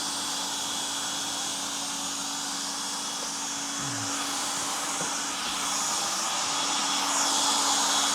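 Electric machine polisher running steadily on windscreen glass with cutting paste, in the polish stage after abrasive grinding. It gets a little louder near the end.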